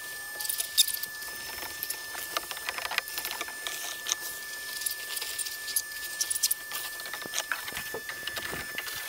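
Scattered small clicks and rattles of debris being cleared out of a fiberglass boat hull after the rotted floor has been cut out, over a steady high whine.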